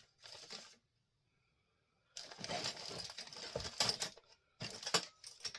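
Chainsaw parts being handled: irregular clatter and clicking of small hard pieces, busiest from about two seconds in, with a few sharp clicks near the end.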